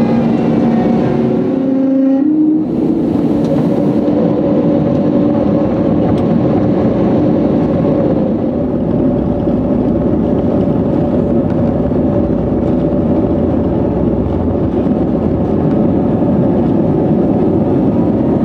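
Cabin sound of an Airbus A320-family airliner's turbofan engines spooling up to takeoff thrust, with a tone climbing about two seconds in. A steady engine drone follows, over a heavy rumble that builds as the aircraft runs down the runway on its takeoff roll.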